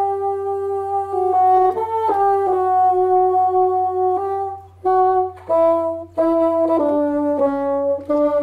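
Bassoons playing a slow melody in long held notes, with a couple of short breaks past the middle and the notes stepping down toward the end.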